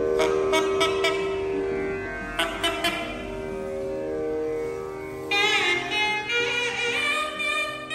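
Nadaswaram, the long South Indian double-reed temple horn, played solo as mangala isai, the auspicious temple music. It plays held notes broken by a few short separate notes, then from about five seconds in a fast, bending, ornamented phrase high in its range.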